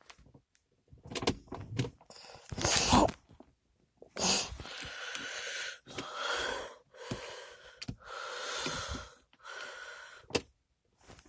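Handling noise at a car's centre console: a few knocks, then a run of rubbing, rustling strokes about a second each as the gear lever in its newly fitted gear stick gaiter is worked, with a sharp click near the end.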